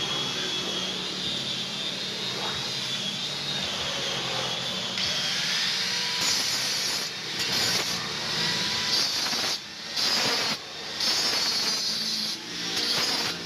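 Metalworking in a steel workshop: a power tool or welding arc makes a steady hissing, grinding noise. A thin whine runs through the first few seconds, the hiss grows brighter about five seconds in, and it stops briefly a few times near the end.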